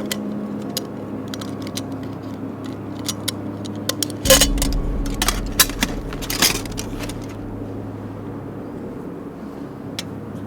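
Aluminium camping pots and lids from a Snow Peak personal cooker set clinking and knocking as they are handled and nested together, busiest in the middle with one heavier knock.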